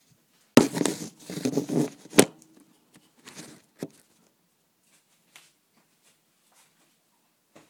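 Handling noise from the recording phone as it is moved and set down: rubbing and knocking on the microphone for about two seconds, ending in a sharp knock, then a few fainter taps and clicks.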